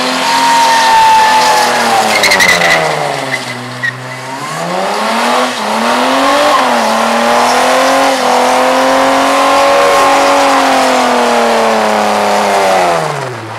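Car doing a burnout: engine held at high revs with the rear tyres spinning against the track. The revs dip sharply about four seconds in, climb back and hold steady, then fall away near the end.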